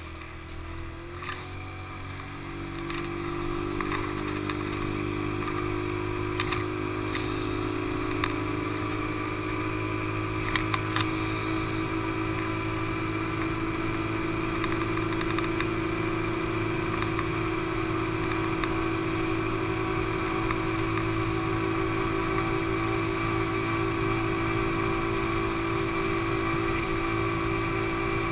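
GY6-engined Honda Ruckus scooter, on its stock exhaust with the carburettor not yet re-jetted, accelerating for the first few seconds and then holding a steady drone at cruising speed. A few light knocks come through in the first ten seconds.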